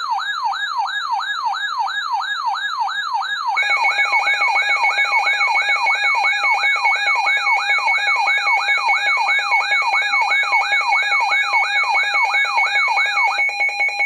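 NOAA weather radios sounding their alert alarm for a flood warning: a siren of quick falling sweeps, about two and a half a second. About three and a half seconds in, a steady pulsing tone joins, and the sweeps stop shortly before the end.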